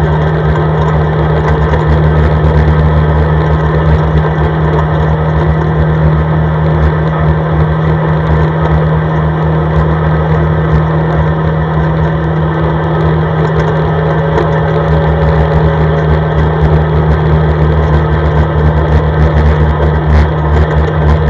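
CFMoto ATV engine running steadily under way, a constant droning hum that grows slightly louder near the end.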